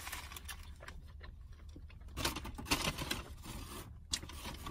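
Soft chewing of a crispy fried-chicken sandwich, with faint rustling and scraping of paper as the food is handled. From about two seconds in the crackly rustling gets busier, and there is a sharp click near the end.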